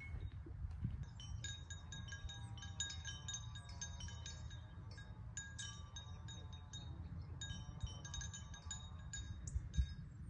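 Small metal chimes tinkling in irregular clusters of light strikes, each ringing briefly, over a steady low rumble.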